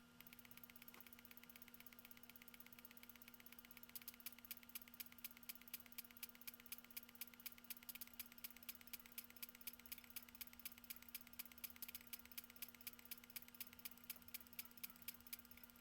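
Near silence: a faint steady hum, with faint regular ticking about three times a second from about four seconds in.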